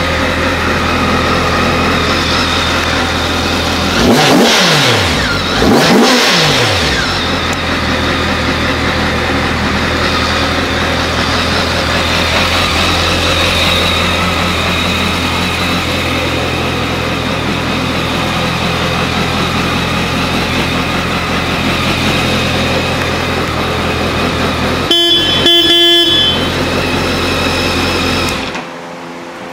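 2007 BMW K 1200 GT's inline four-cylinder engine idling, blipped twice with quick revs about four and six seconds in. Near the end the horn gives a brief double beep, then the engine shuts off.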